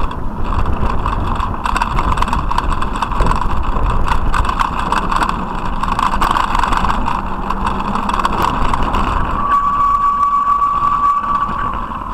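Ride noise picked up by a camera on a moving bicycle: tyres rolling over brick paving, with a steady rumble and a dense clatter of small rattling clicks. Near the end a thin steady tone sounds for about a second and a half.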